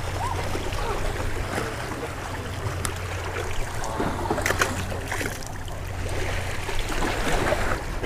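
Small waves washing against jetty rocks, with wind on the microphone. A brief splash about four and a half seconds in as a small black sea bass is released into the water.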